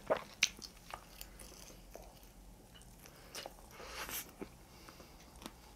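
Faint close-up eating sounds from a man biting into and chewing a honey-glazed fried chicken wing: scattered small clicks and smacks, a little louder about four seconds in as the piece goes into his mouth.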